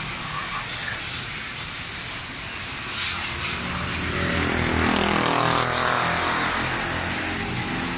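Water from a garden hose spraying onto a bicycle, a steady hiss, with a vehicle passing by about halfway through, its engine swelling and then falling away in pitch.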